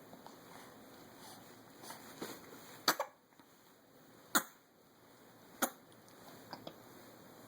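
A baby hiccupping: three sharp, short hiccups about a second and a half apart, starting about three seconds in, with a few fainter ones around them.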